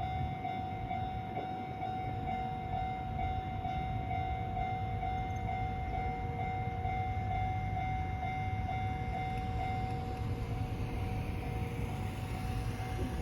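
Japanese level-crossing electronic warning bell ringing in a steady, rapid beat, fading near the end, over the low steady rumble of a train on the JR Kansai Main Line.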